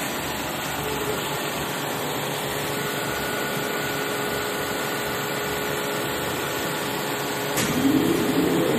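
Steady hum of a 1969 OM TMD 25/35 vertical lathe's electric motors running. Near the end a click as a push-button on the control panel is pressed, then a motor spins up with a rising whine.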